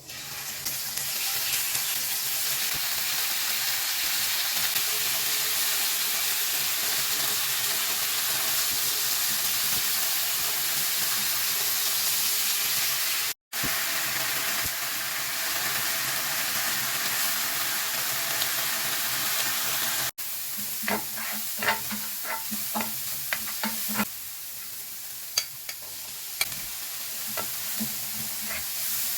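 Food sizzling steadily in a hot frying pan. Later a utensil scrapes and clicks against the pan in quick strokes over a quieter sizzle.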